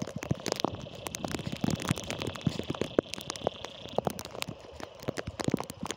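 Rain falling, with raindrops striking close to the microphone in quick, irregular ticks. A steady high-pitched drone runs underneath for about the first four seconds.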